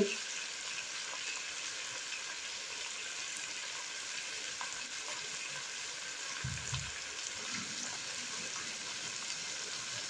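Sliced bell peppers, carrots and onion sizzling steadily in a pan, an even hiss with faint crackles. A couple of soft low knocks come a little past halfway.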